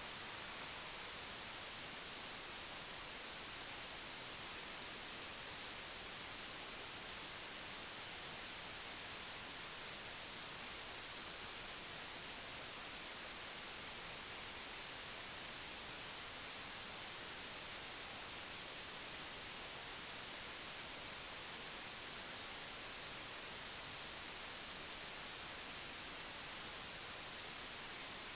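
Steady, unchanging static hiss, strongest in the high range, with no distinct sounds standing out.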